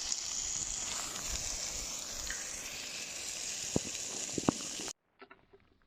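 Lamb chops frying in a pan in plenty of oil: a steady sizzle with a couple of sharp pops near the end, cutting off suddenly about five seconds in.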